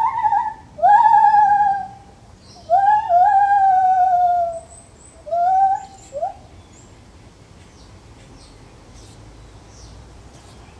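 Lar gibbon calling: a run of loud whooping notes, each sweeping quickly up and then sliding slowly down with a slight quaver, the longest about a second and a half. The calls stop about six seconds in.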